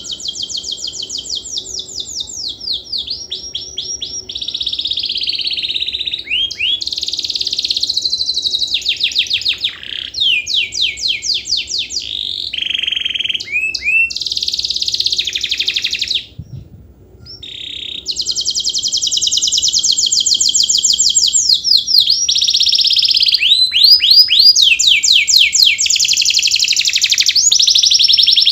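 Domestic canary singing a long, continuous song of rapid trills and quick gliding notes, with one short break about sixteen seconds in.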